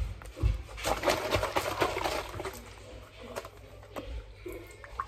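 Plastic screw cap twisted off a drinks carton with a run of small crackling clicks, then chocolate coconut milk poured from the carton into a glass tumbler near the end.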